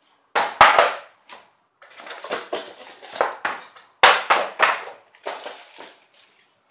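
Cardboard packaging and the paper wrapping of a turntable dust cover rustling and scraping in several bursts as the wrapped lid is lifted out of the box, with a soft thump about half a second in and another about four seconds in.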